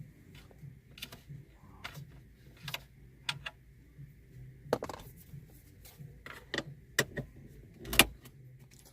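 Irregular sharp clicks and taps of a Phillips screwdriver and small metal screws being worked out of a car radio's mounting, about one or two a second, with the loudest click near the end.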